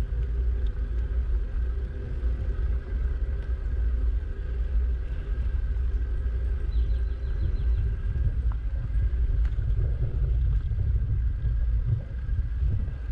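Steady low rumble of wind buffeting a bike-mounted action camera's microphone, mixed with bicycle tyre noise on asphalt while riding.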